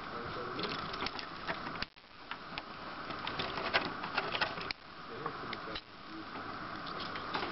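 Small LEGO Power Functions electric motors whirring as they turn their axles, with clicks from the plastic parts; the whirr cuts off suddenly about two seconds in and twice more near the end, each time starting up again.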